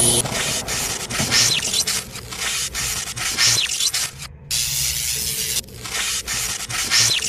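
Electric crackling and sizzling sound effect for an animated neon logo, with rapid crackles, a low electrical hum and a few short sweeping zaps. It cuts out completely for a moment a little past four seconds in.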